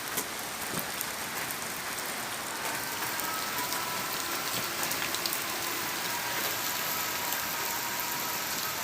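Steady rain falling on surfaces, with a faint, thin, drawn-out high sound from about three seconds in until shortly before the end.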